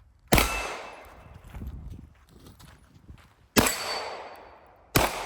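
Three gunshots, unevenly spaced: one just after the start, one past three and a half seconds, and one near the end. Each shot rings out and fades.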